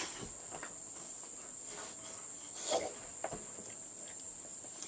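Steady, high-pitched insect chorus of crickets chirring without a break. Over it come faint puffs as a tobacco pipe is drawn on, and one louder brief noise a little under three seconds in.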